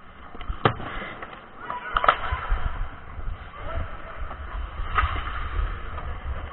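Ice hockey play heard up close on the ice: skate blades scraping, with sharp clacks of stick and puck, three of them, the loudest about two seconds in.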